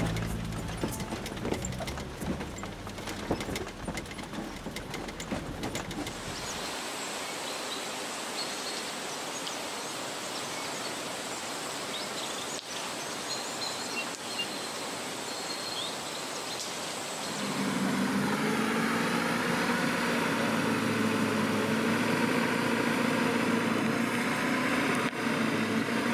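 Rattles and knocks of an old open 4x4 driving over a rough track. Then outdoor ambience with a steady high whine and a few faint bird chirps. About two-thirds of the way through, a vehicle engine starts running steadily and is louder than the rest.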